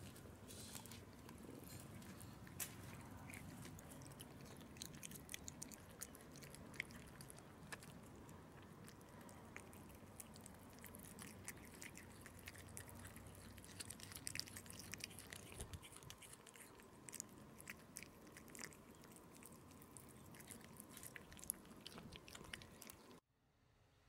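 Two cats chewing raw fish sashimi, a faint run of wet, crunching clicks as they bite and chew. It cuts off suddenly near the end.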